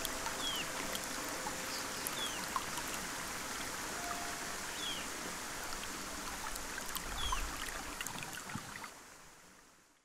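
Rainforest stream rushing over rocks, a steady wash of water, with a bird repeating a short falling chirp every couple of seconds. The sound fades out in the last second or so.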